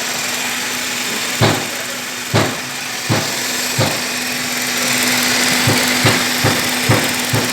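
Car engine running with a steady rushing noise and a faint hum, while about nine sharp knocks sound: four about a second apart, then five quicker ones near the end.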